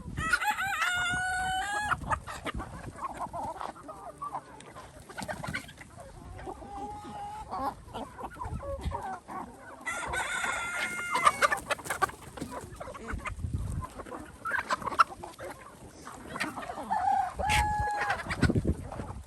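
A flock of chickens clucking, with roosters crowing twice, once right at the start and again about ten seconds in, and a shorter call near the end.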